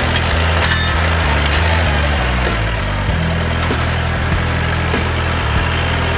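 Farmall tractor engine running as the tractor drives slowly along, with a few sharp knocks.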